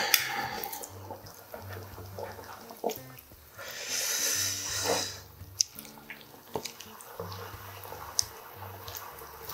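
Samgyetang broth simmering in a hot pot while metal tongs and chopsticks stir and lift the chicken and ginseng in the liquid, with watery sloshing and a few light clicks of the tongs against the pot. The liquid noise swells briefly about four seconds in.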